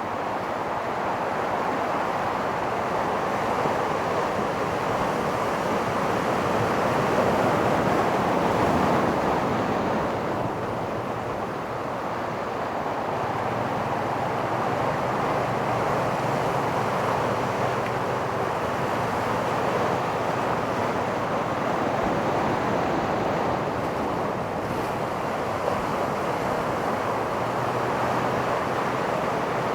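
Ocean surf breaking and washing up on a beach: a continuous rush of waves that swells a little after the start, eases briefly, then holds steady.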